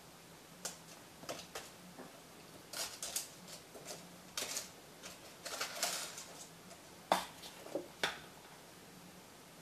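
Hands working among potted plants and their containers: scattered light clicks, taps and scrapes, thickest around the middle, with two sharper knocks near the end.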